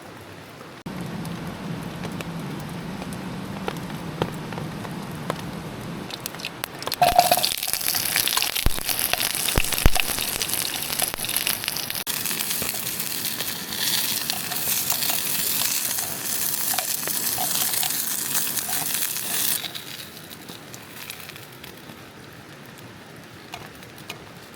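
Steady rain falling, with a much louder hiss from about seven seconds in that stops abruptly near the end.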